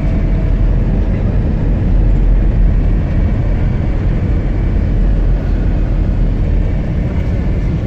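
Village minibus driving along a snow-covered road, heard from inside the cabin: a steady low engine and tyre rumble.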